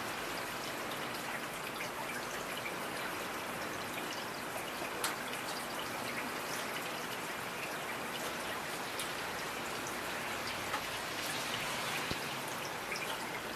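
Steady rain falling, a dense even hiss with individual drops tapping now and then, one louder drop about five seconds in.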